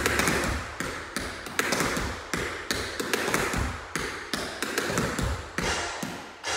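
Tap shoes' metal taps striking the floor in a steady run of sharp clicks, about two to three a second, each ringing briefly.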